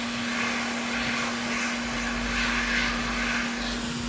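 A steady rush of blown air from a small motor-driven blower, swelling and easing slightly a few times, over a constant low electrical hum.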